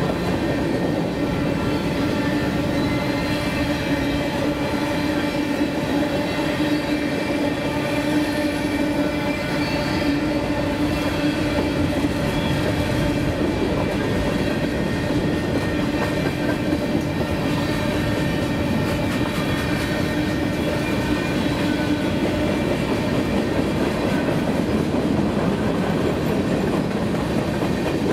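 Freight train's covered hopper cars rolling past at a steady pace: a continuous rumble of steel wheels on the rails, with a faint steady hum running under it.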